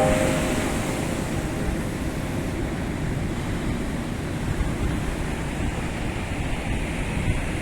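Stormy Atlantic surf: a steady roar of breaking waves, with wind noise on the microphone.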